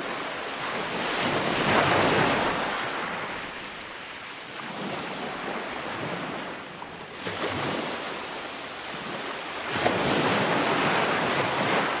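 Sea waves breaking and washing onto a sandy beach. The surf swells three times, loudest about two seconds in and again near the end, then cuts off suddenly.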